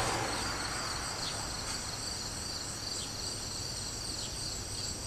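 Steady insect chorus trilling at several high pitches, with faint short chirps every second or so.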